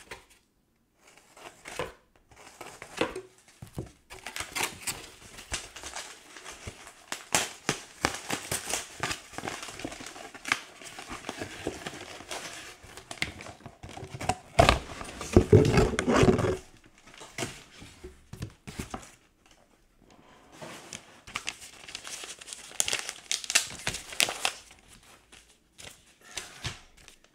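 A mail package being torn open and its paper packing crinkled by hand: irregular rustles, crackles and rips with short pauses, loudest and deepest a little past halfway.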